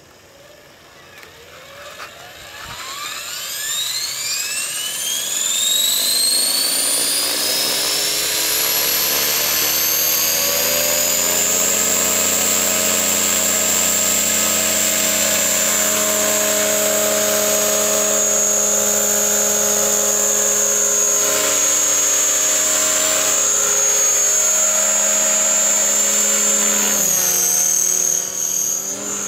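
Align T-Rex 500 electric RC helicopter spooling up: a whine rises steadily in pitch over about ten seconds as the rotor comes up to speed, then holds steady at head speed. Near the end the pitch dips and the sound grows quieter as the helicopter lifts off and climbs away.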